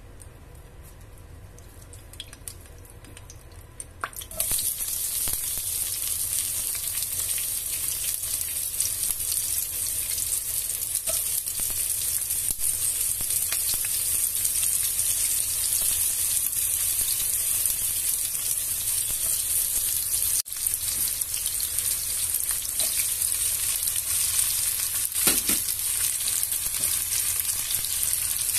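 Hot oil in a nonstick frying pan, quiet at first with a few small clicks, breaks into a sudden sizzle about four seconds in as sliced onions go in. The sizzle then runs steadily as the onions and sliced meat fry.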